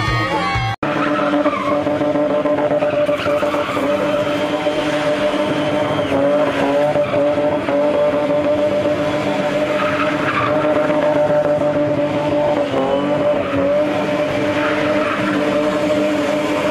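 BMW E30 325i 'Gusheshe' spinning donuts: its straight-six engine held at a steady, high pitch, sagging briefly twice, while the rear tyres spin and screech on the tarmac.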